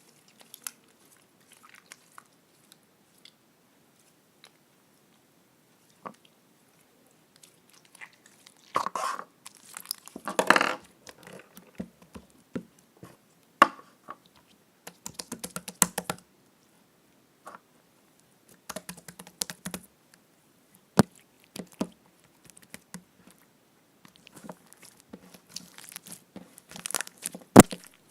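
Slime being squeezed and stretched by hand, crackling and popping in irregular spells with short quiet gaps between them, and a few single sharp pops.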